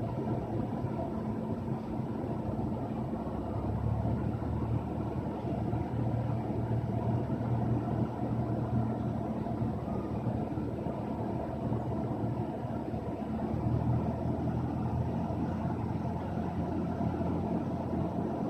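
Cessna 172's piston engine and propeller running steadily at low taxi power, heard from inside the cockpit, with small swells in level a few seconds in and again later.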